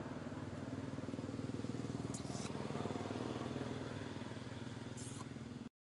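A small engine idling steadily with a fast, even pulse, broken by two brief high crackles about two and five seconds in; it cuts off suddenly near the end.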